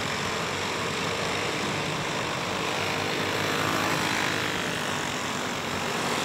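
Several racing go-kart engines running together as the field laps the dirt oval, a steady blend of engine noise.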